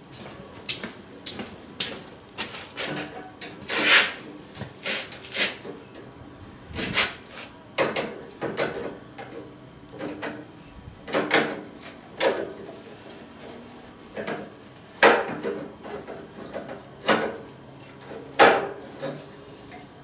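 Irregular metallic clanks and knocks from a steel exhaust pipe section being handled and knocked against a steel welding table. Each clank rings briefly, and the loudest come about four seconds in and twice near the end.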